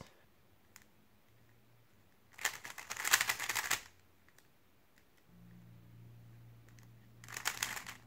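3x3 speedcube being turned quickly through an algorithm, its plastic layers clicking and clacking in rapid runs. A run of about a second and a half comes about two and a half seconds in, and a shorter run comes near the end.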